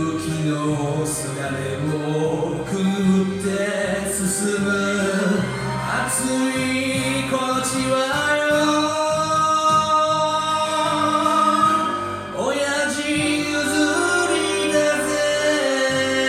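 Enka music from a karaoke backing track, with a sung or played melody holding long notes. There is a sweeping change in the music about twelve seconds in.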